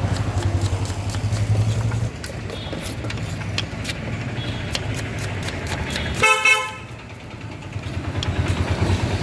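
Knife tapping repeatedly on a wooden chopping block as onions are chopped, over the low rumble of a running vehicle engine. About six seconds in, a vehicle horn honks briefly, the loudest sound.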